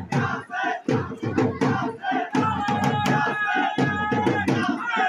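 A Muharram mourning lament sung by voices in a crowd over a steady beat of sharp strikes, about two or three a second; a long note is held through the middle.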